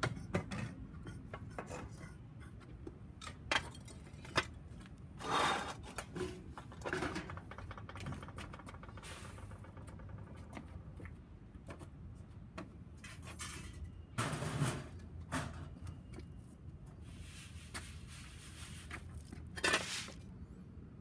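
Scattered clicks and knocks with a few short clattering bursts, from handling the cast-iron roasting pot and the freshly roasted coffee beans.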